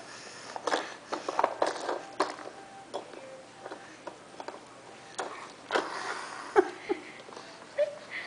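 Plastic toys on a baby walker's tray being grabbed, spun and knocked by a baby's hands: an irregular run of clicks, rattles and taps, coming in clusters. Near the end there are a couple of short baby vocal sounds.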